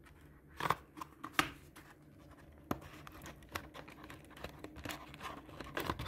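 A small product box being opened and its packaging handled: irregular scrapes, crinkles and light taps.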